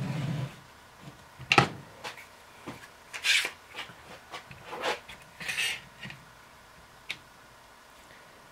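Irwin Quick-Grip bar clamps being set and tightened on glued maple blocks. There is a sharp knock about a second and a half in, then scattered clicks and two short scrapes.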